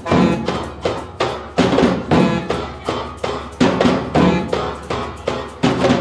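Live amateur drum ensemble: bass drums and djembes beating a steady pulse of about two strong beats a second, with a guitar playing along.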